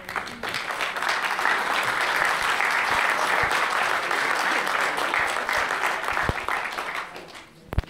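Audience applauding: a steady wash of many hands clapping that builds up within the first second and dies away near the end.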